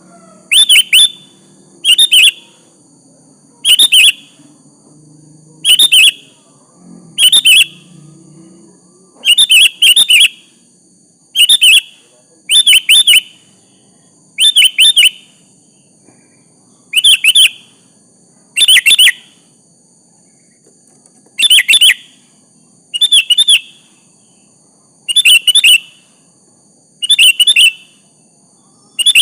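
Sooty-headed bulbul (kutilang) calling: a short, bright phrase of quick notes repeated about every second and a half, a rival-calling song.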